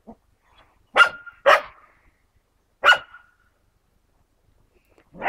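Norrbottenspets puppy barking at other dogs: two barks about a second in, half a second apart, another near three seconds, and a fourth right at the end.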